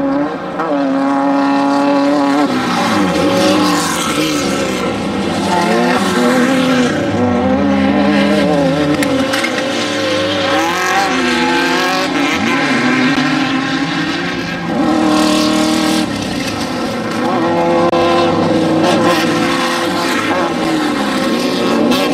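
Off-road desert race vehicles' engines revving hard, their pitch climbing and dropping again and again through gear changes, with more than one engine sounding at once.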